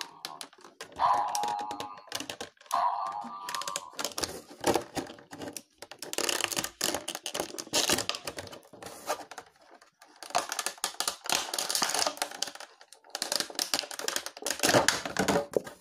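Dense, irregular clicking and clattering of small plastic pieces being handled, with two short pitched squeaks about one and three seconds in.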